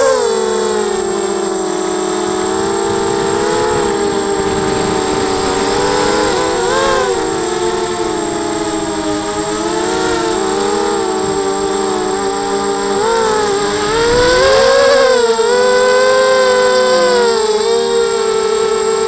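ZMR 250 mini quadcopter's brushless motors and propellers whining in flight, heard from the onboard camera. The pitch wavers up and down with the throttle and sweeps up sharply about fourteen seconds in as the quad climbs.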